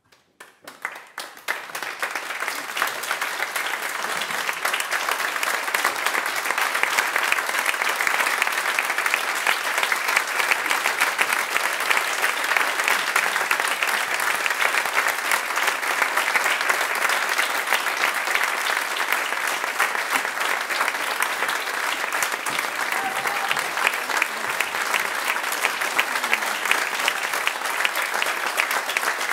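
Audience applauding: a few separate claps quickly build within about two seconds into dense, steady applause.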